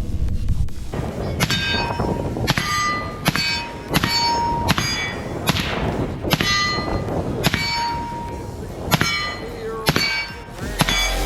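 Steel targets ringing as they are struck by gunfire: about a dozen sharp clangs at uneven spacing, each leaving a ringing tone at its own pitch.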